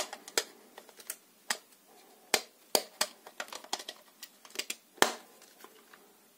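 Plastic cover of a Phomemo P12 label printer being fitted back onto the body: an irregular series of sharp plastic clicks and taps, the loudest about five seconds in as the lid snaps shut.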